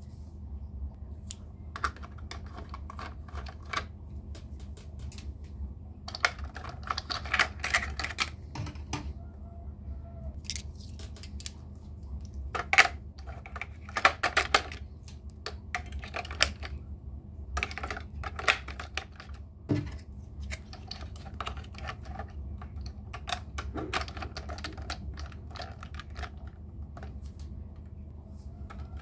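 Irregular clicking and clacking of toys being handled, in short clusters, over a low steady hum.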